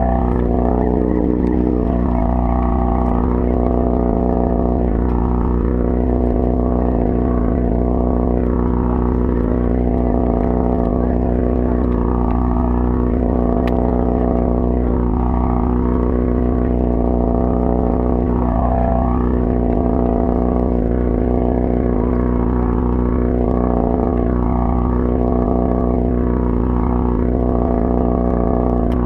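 Party boat's engine running at a steady speed, a constant drone whose tone wavers every two or three seconds.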